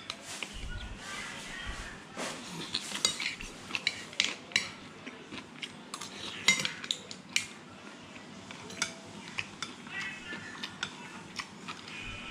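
Metal spoon and fork clinking and scraping against a ceramic plate and bowl during a meal, a string of irregular sharp clinks.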